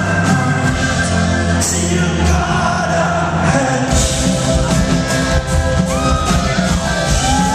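A rock band playing live through a hall PA, heard from within the audience, with a singer's voice over the band. About four seconds in, the sustained bass notes give way to a fuller, busier band sound.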